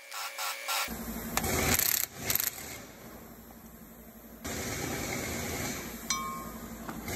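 Cordless impact wrench running in bursts on the bolts of a press fixture, backing them off, with metal parts clinking.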